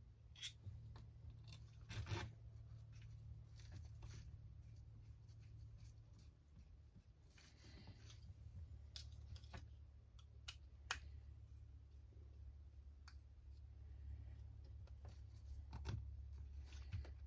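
Faint, scattered clicks and short scrapes of small parts and hand tools being handled while an RC crawler chassis is being put together, over a steady low hum.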